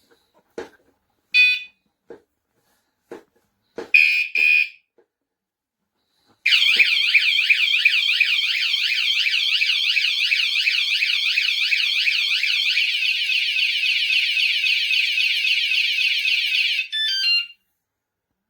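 Motorcycle anti-theft alarm: a few clicks and short beeps, then a loud warbling siren that changes to a different pattern about halfway through, ending in a brief beep.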